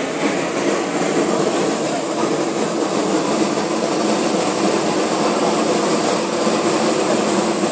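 Hot-air balloon's propane burner firing: a steady, loud rushing noise without pauses.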